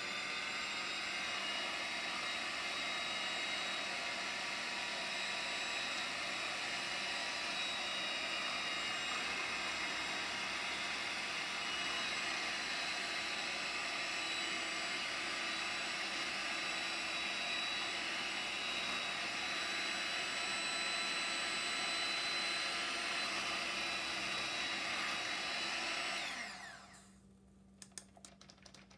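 Electric kitchen hand mixer running at a steady speed with a single beater stirring paint in a small plastic cup, a steady motor whine. About 26 seconds in it is switched off and the motor winds down, its pitch falling.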